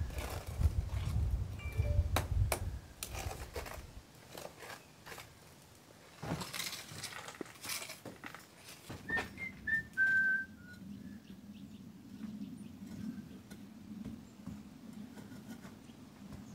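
Mortar trowel scraping and clicking against a hawk and the stones of a wall being repointed, in short irregular scrapes and taps. About nine seconds in, a short whistled phrase of a few notes stepping down in pitch stands out as the loudest sound, followed by a faint steady low hum.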